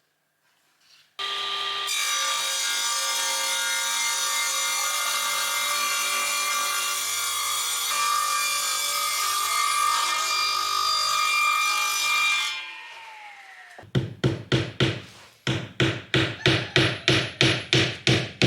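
A power tool's motor runs steadily for about eleven seconds, then winds down with falling pitch. Then a saw cuts wood in quick back-and-forth strokes, about three a second.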